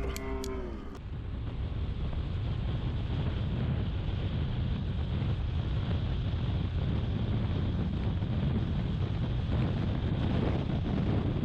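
Wind buffeting the microphone: a steady low rumble with a rushing hiss on top, after a short stretch of music cuts off about a second in.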